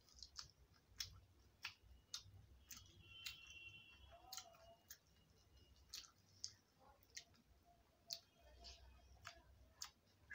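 Quiet eating with the hand from a steel plate: chewing and irregular small clicks, roughly two a second.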